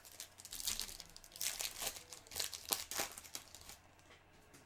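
Foil wrapper of a baseball card pack being torn open and crinkled in the hands, in a run of crackly rustles lasting about three seconds.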